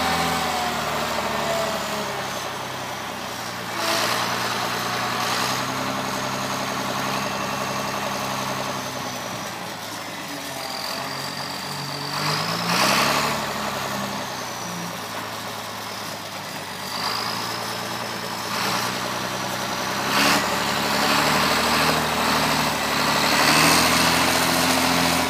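John Deere 644A wheel loader's diesel engine running under load, its pitch rising and falling as it works. A faint high whine glides above it, and a few short knocks come through.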